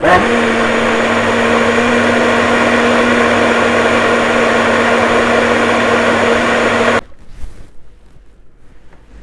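Personal blend-and-go blender motor spinning up and running steadily while it purees a thick fruit smoothie in its jar. The motor cuts off suddenly about seven seconds in.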